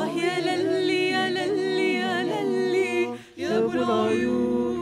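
A cappella ensemble of women's and men's voices singing an Egyptian Canal-cities folk song in harmony, with no instruments: a low sustained bass part under moving upper voices. The singing breaks off briefly about three seconds in, then the chord comes back.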